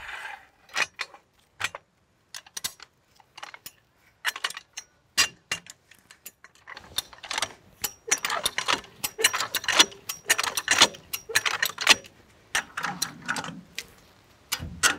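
Hand-worked ratcheting lever lift on a log trailer's arch: a run of irregular mechanical clicks and metallic clinks from the ratchet and lifting chain as the log is raised, busiest in the middle.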